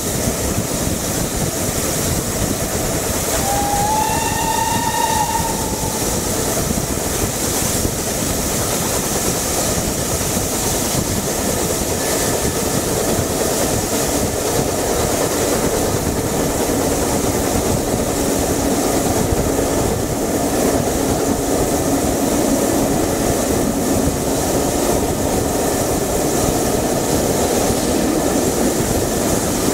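Steam train hauled by two BR Standard Class 9F locomotives running at speed, heard from a carriage window as a steady rush of wheel and running noise. A steam whistle sounds once for about two seconds, a few seconds in, its pitch rising slightly as it starts.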